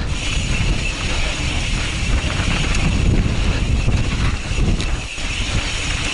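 Wind buffeting the onboard camera's microphone as an Intense Tracer mountain bike descends a dirt trail, with a steady hiss and rumble from the rolling tyres and short knocks and rattles as the bike goes over bumps and ruts.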